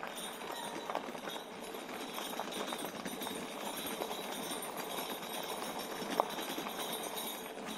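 Mooncool TK1 electric trike rolling along a rough trail: steady tyre noise with many small irregular rattles and clicks, and one sharper click about six seconds in.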